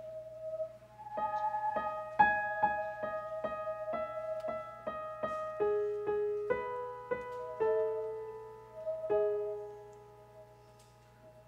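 Piano playing a slow line of single ringing notes, about two a second, over a held tone. The notes stop a couple of seconds before the end and the sound fades away.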